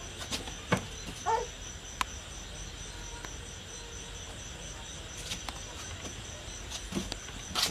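Insects chirping steadily in a high, evenly pulsing trill, with a few scattered soft clicks and knocks.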